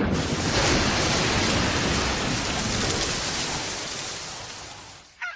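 Steady heavy rain of a night storm, as a cartoon sound effect, fading out over the last second or so.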